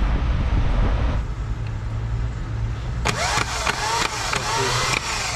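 Truck self-starter motor bench-tested on battery cables, spinning up with a loud whine for about two seconds starting about three seconds in, after its repair. A low rumble runs underneath in the first second.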